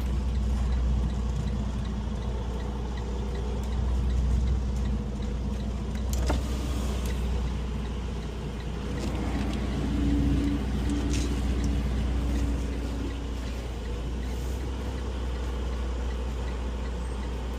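Semi truck's engine running at a steady low rumble.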